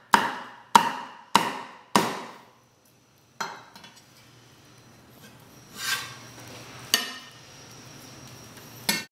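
Chinese cleaver chopping through a cooked chicken breast on a wooden chopping block: four sharp chops about half a second apart. Then a few lighter knocks and a scrape as the cut pieces are scooped onto the blade and slid onto a plate.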